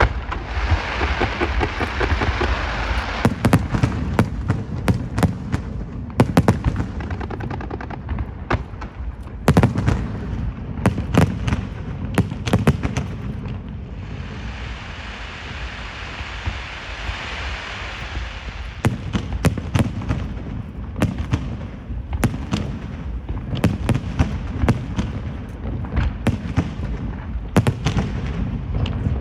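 Fireworks display: a long run of sharp bangs from bursting shells over a steady low rumble. There are stretches of dense crackling at the start and again about halfway through.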